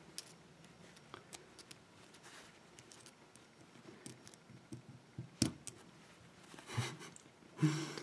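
Small flat screwdriver prying at the steel retaining clip on a euro-profile lock cylinder: faint metal scrapes and light clicks, with one sharp click about five and a half seconds in.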